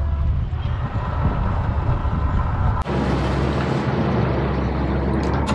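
A sailing yacht's inboard engine runs steadily at low revs as the boat is manoeuvred, with wind on the microphone. About three seconds in the sound changes abruptly to a deeper, heavier rumble.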